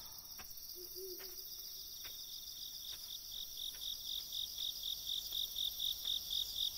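Night-time chorus of crickets: a steady high trill, joined about two and a half seconds in by a rhythmic chirping of about four chirps a second that grows louder. A few faint clicks are scattered through it.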